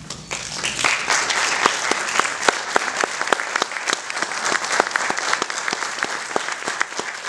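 Audience applauding: many hands clapping in a dense, steady patter that starts suddenly and fills in within the first second.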